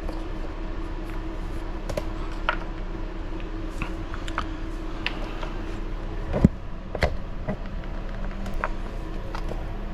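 Small RC buggy parts clicking and tapping against the chassis as battery mounts are test-fitted, with one louder knock about six and a half seconds in and a sharp click just after it, over a steady low hum.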